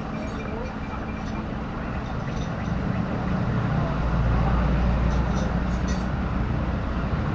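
A motor vehicle engine running, growing louder about three seconds in and easing off near the end.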